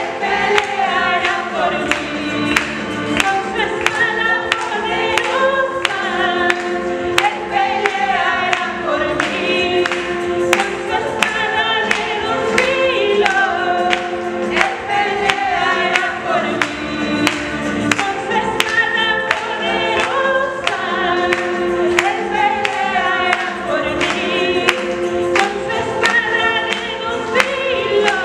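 Women's voices singing a gospel worship song into microphones, accompanied by a Yamaha electronic keyboard with a steady beat.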